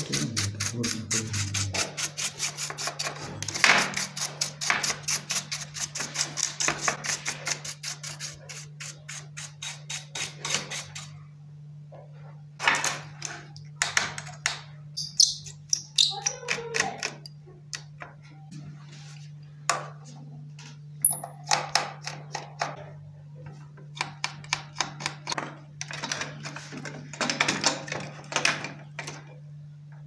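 Small hand-tool work on an opened laptop, likely a screwdriver taking out screws: a fast, even run of clicks for about the first ten seconds, then scattered clicks and taps, over a steady low hum.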